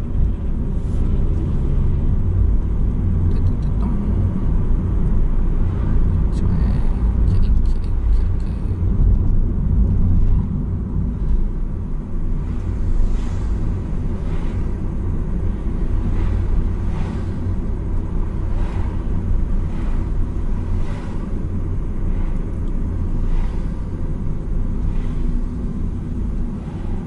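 Car cabin noise while driving: a steady low rumble of engine and tyres on the road. Faint short ticks come about once a second in the second half.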